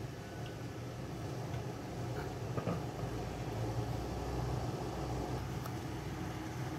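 Steady whir and hum of a kitchen range-hood exhaust fan over a stovetop, with a few faint light clicks.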